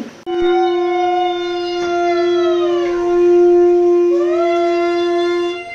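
Conch shell (shankha) blown in one long, steady note for about five seconds, while a second tone slides down in pitch near the middle and rises back about four seconds in.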